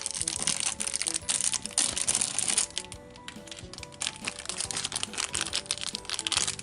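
Crinkling and crackling of a Shopkins Happy Places blind-bag wrapper being handled, in two spells, over background music.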